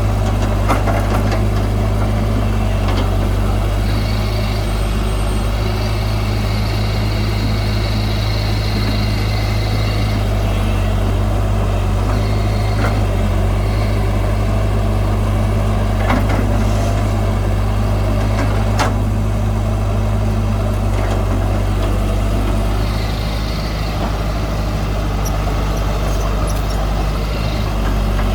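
Heavy diesel earthmoving machinery running steadily, with a few sharp metallic knocks and a high squeal that comes and goes.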